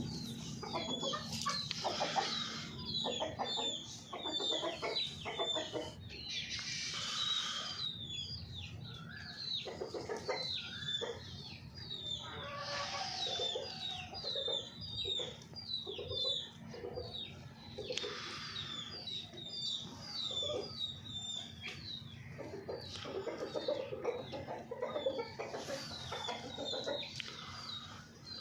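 Golden Misri hens clucking and calling, with many short high calls throughout and a few longer, louder squawking calls, over a steady low hum.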